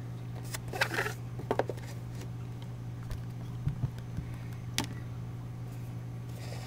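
Light rustles and clicks of a plastic toy figure being handled and lifted out of a cardboard box, with one sharper tap about five seconds in, over a steady low hum.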